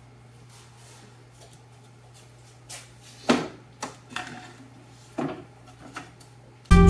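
A few short, light clanks and knocks of metal being handled, spread over the second half, over a steady low hum.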